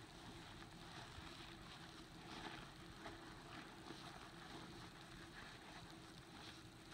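Faint wet swishing of a sponge scrubbing soapy foam into a carpet rug, in soft irregular strokes about once a second, over a low steady hum.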